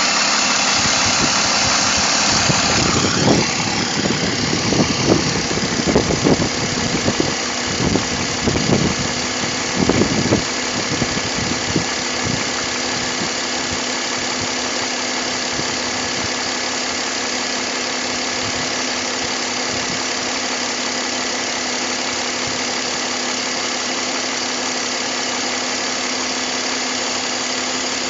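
BMW M54 straight-six engine idling steadily. A high hiss fades out about three seconds in, and irregular knocks come and go from then until about twelve seconds in.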